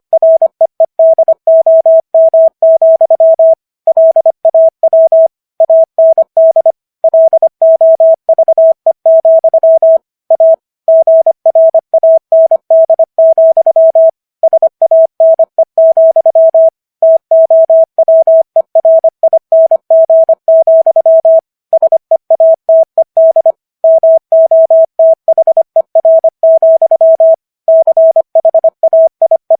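Morse code at 25 words per minute: a single steady mid-pitched tone keyed on and off in quick short and long elements, with brief pauses between characters and longer gaps between words.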